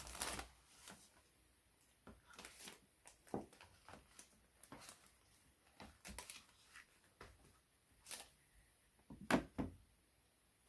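Handling of the box and packaging during an unboxing: scattered rustles, slides and light taps, with two louder knocks about nine seconds in.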